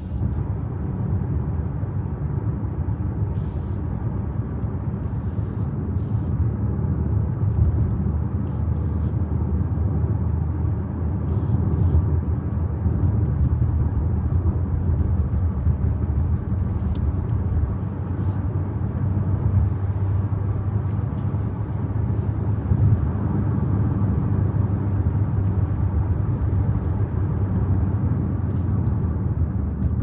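Alfa Romeo Tonale being driven on a winding road, heard from inside the cabin: a steady low rumble of engine and road noise.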